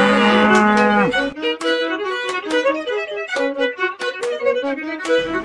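Violin-led music: a long low note slides down and ends about a second in, then quick, short, bouncing notes follow.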